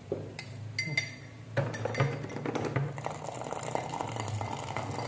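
Metal spoon clinking against a glass mug while stirring a drink, several separate clinks in the first two seconds, one ringing briefly. Then liquid pouring steadily from a bottle into the mug.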